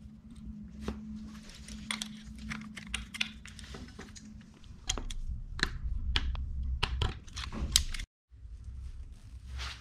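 Scattered light metal clicks and ticks of hands turning the threaded turnbuckle and tightening its lock nuts on a belt-drive garage door opener's steel rail, over a faint steady hum.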